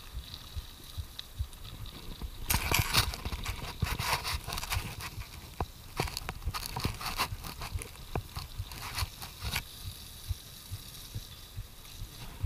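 Mountain bike rolling over a gravel trail, with a low rumble throughout. From about two and a half seconds in until near ten seconds, the tyres crunching and the bike rattling become a dense, irregular clatter.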